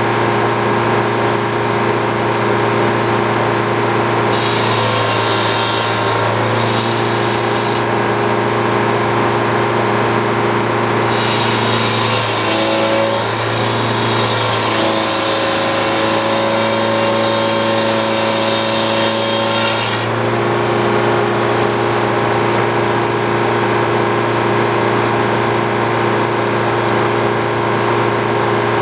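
Old Frick circular sawmill running steadily under engine power, with the blade cutting through a poplar log twice: a short cut about four seconds in, then a longer one from about eleven to twenty seconds, each adding a higher rushing noise over the steady drone.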